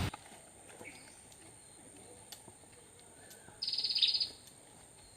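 A bird gives one short, rapid, high-pitched trill about three and a half seconds in, over quiet park ambience with a faint steady high hiss.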